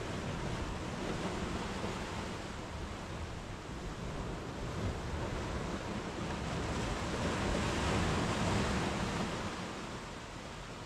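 Sea waves breaking and washing up a sandy beach: a steady rush of surf that swells to its loudest about two-thirds of the way through, then eases.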